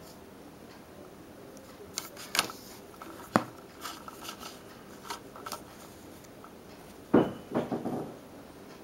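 Handling sounds as a small cloth T-shirt is fitted over a plastic computer mouse: scattered light plastic clicks and brief fabric rustles, with a sharper click about three and a half seconds in and a short cluster of rustles and taps around seven seconds in.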